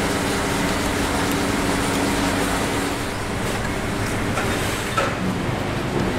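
Steady mechanical background noise with a low hum that fades out about three seconds in, and one light click near the end.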